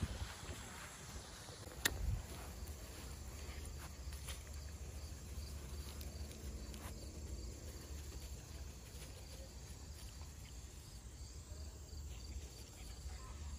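Insects chirping faintly in an even, repeating pattern over a low steady rumble, with one sharp click about two seconds in.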